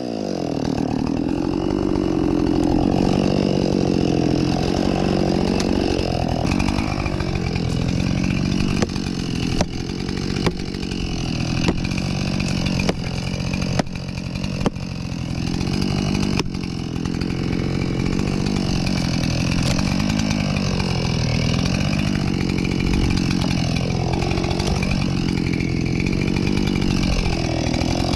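Husqvarna 576XP two-stroke chainsaw running steadily, cutting into a poplar trunk. Several short, sharp knocks sound over the engine around the middle.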